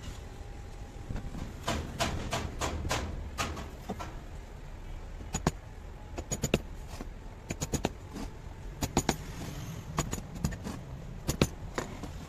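Irregular series of sharp clicks and knocks, some in quick runs of three or four, from hand tools and metal parts being handled while an alternator is worked on.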